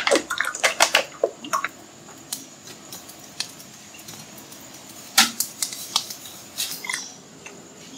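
Cookware being handled beside a wood-fired stove: scattered light clicks and knocks of a plastic oil bottle and a metal basin, with a louder knock about five seconds in, over a faint steady high tone.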